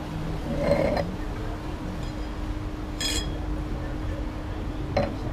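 A stemmed wine glass chinks once with a brief bright ring about three seconds in as it is handled and polished with a napkin, followed by a softer tap near the end. A faint steady hum runs underneath.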